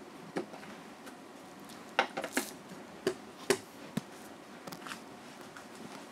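A few short, sharp clicks and knocks over a faint steady hiss, with a cluster of them about two seconds in.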